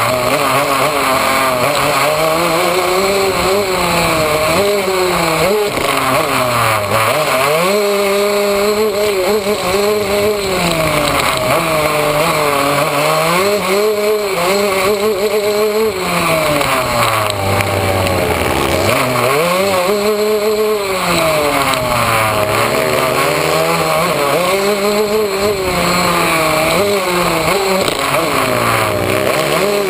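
Yamaha YZ125 two-stroke dirt bike engine heard from on the bike. Its pitch repeatedly rises and falls as the rider accelerates, shifts and backs off, with one longer drop to low revs about two-thirds of the way through.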